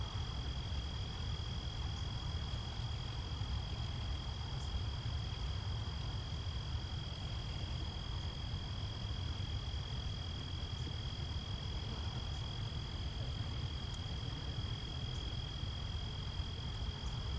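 A steady insect chorus of two unbroken high-pitched trills over a low rumble.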